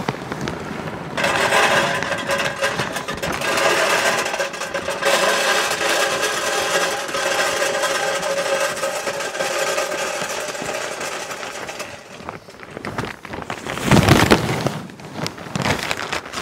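Mesquite wood pellets being poured from a bag into the metal hopper of a Country Smokers portable pellet grill: a dense, steady rattle and patter of pellets with a faint ringing of the hopper, stopping about twelve seconds in. It is followed by a brief louder rustle of handling near the end.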